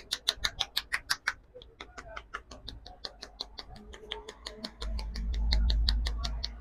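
Rapid, even slapping of a barber's pressed-together palms chopping on a man's scalp in a head massage, about seven strikes a second, loud at first and softer after about a second and a half. A low rumble comes in about five seconds in and fades near the end.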